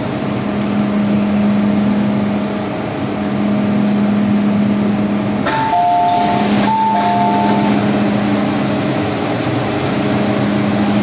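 MTR M-Train running, heard from inside the car: a steady hum and rail noise, with a click about halfway and then a two-note electronic chime sounded twice.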